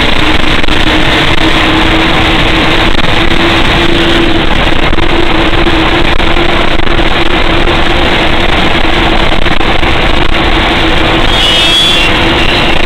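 Old fire truck's engine and drivetrain running under way, heard loud inside the cab as a steady drone with a constant hum. A brief high squeal near the end.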